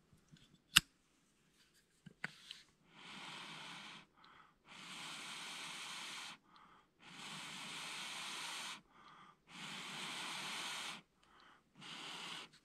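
A person blowing long, steady breaths onto a freshly lit charcoal hand-warmer stick to get it glowing: five long blows with short breaths in between. A sharp click about a second in, from the lighter snapping shut.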